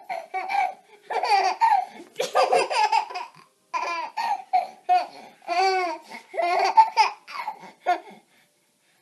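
A baby laughing and squealing with delight in a run of short, high-pitched laughs, some gliding up and down in pitch.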